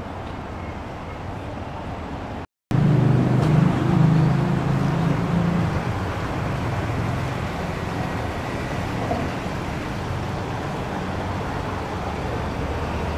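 City route bus's diesel engine pulling away, with a deep engine drone that is loudest for about three seconds and then settles into steady running, over street traffic noise. The sound drops out briefly about two and a half seconds in.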